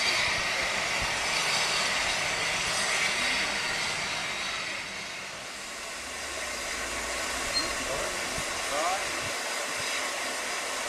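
Steady hiss of steam from Manning Wardle 2-6-2T No.190 Lyd, a narrow-gauge steam tank locomotive, dipping briefly about halfway through.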